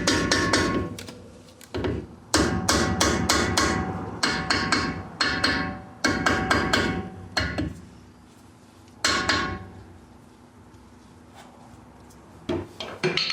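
Hammer blows on a stuck part of a Suzuki Samurai front steering knuckle, struck in quick runs of several blows a second with a faint metallic ring. The blows stop after about seven seconds, then come once more about nine seconds in and a few times near the end.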